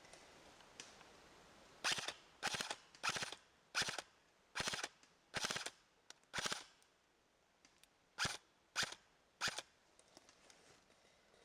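Airsoft gun firing in short bursts of rapid shots: about ten bursts, seven in quick succession, then a brief pause and three more.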